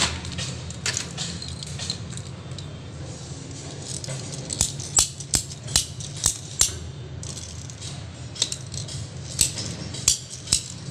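Ratcheting PPR pipe cutter clicking as its handle is squeezed to close the blade on a plastic water pipe: a run of about six sharp clicks at roughly two a second from about halfway, then a few more near the end.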